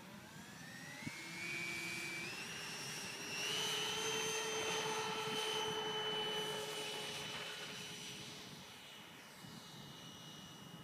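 Radio-controlled model airplane taking off: its motor and propeller whine climbs in steps as the throttle is opened, holds high and steady, then fades as the plane flies away.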